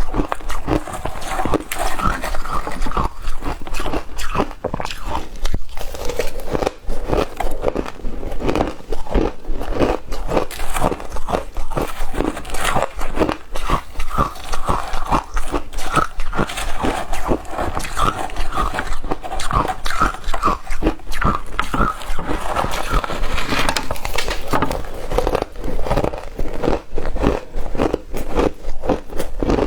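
Ice being bitten and chewed close to the microphone, a continuous run of sharp crunches several times a second, from shaved ice and frozen matcha ice.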